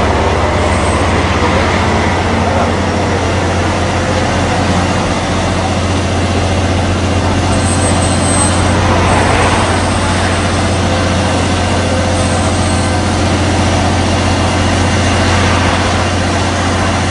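Heavy truck engine running steadily, a constant low drone, with faint voices in the background.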